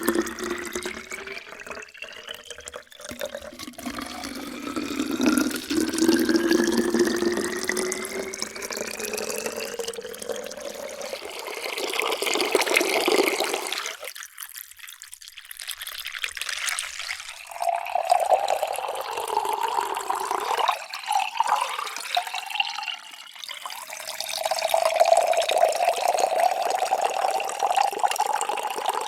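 Water pouring into a container, its tone rising steadily as the vessel fills. The pour stops about halfway through, and a second pour starts a few seconds later, again rising in pitch as it fills.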